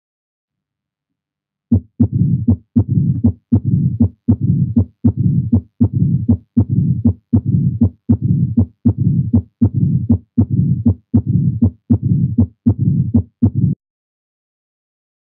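Heart sounds of mitral stenosis heard at the cardiac apex. Sharp S1 and S2 clicks with an opening snap after S2 are followed by a low-pitched diastolic rumbling murmur, repeating beat after beat. The sounds begin about two seconds in and run for about twelve seconds.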